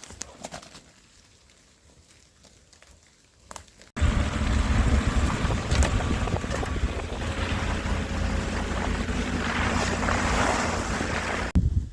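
A few faint clicks and handling noises, then an abrupt cut about four seconds in to a vehicle on the move: a steady engine rumble under loud wind noise on the microphone.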